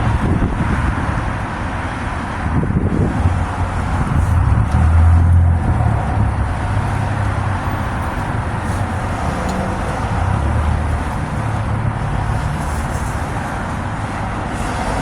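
Steady low rumble with a noisy hiss, like a running vehicle, swelling and easing a little.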